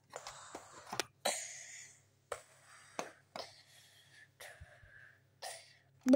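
Light clicks and taps of plastic Lego parts being handled, about nine in six seconds, with soft breathy hiss after some of them in the first two seconds.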